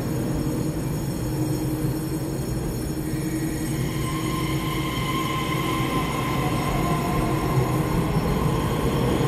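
A Taiwan Railways EMU3000 electric multiple unit pulls slowly out of an underground station platform, its wheels and running gear giving a steady low rumble. A few seconds in, a high electric whine from the traction drive comes in and rises slightly as the train gathers speed.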